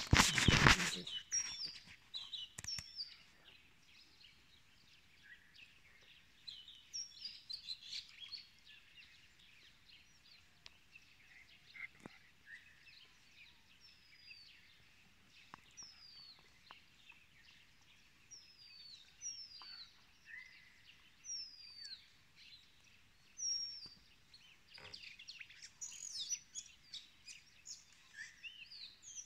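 Small songbirds chirping: many short, high, falling chirps, scattered throughout and busier near the end. A loud rush of noise fills the first second.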